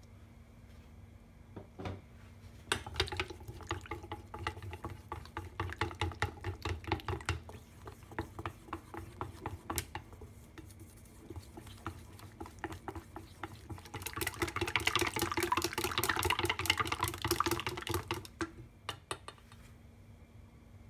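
Egg-and-flour batter being stirred in a stainless steel bowl, the utensil clicking and scraping rapidly against the metal. A faster, denser stretch of mixing comes later on.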